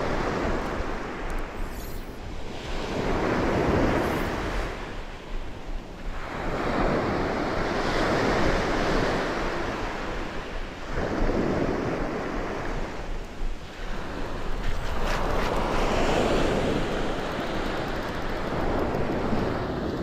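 Small sea waves breaking and washing up a sandy beach. The sound swells and fades again every few seconds.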